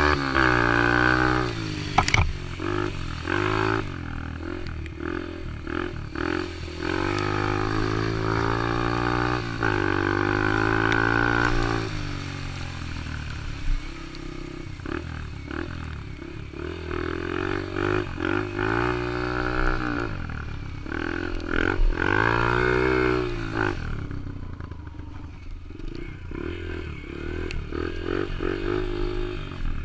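Yamaha TT-R125 dirt bike's single-cylinder four-stroke engine being ridden, revving up and easing off over and over, its pitch rising and falling with throttle and gear changes.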